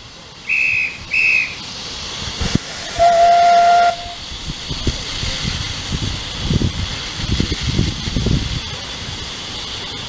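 Miniature steam locomotive whistles: two short high toots, then about a second later one longer, lower whistle. After that, a steady hiss of escaping steam with soft, irregular low puffs.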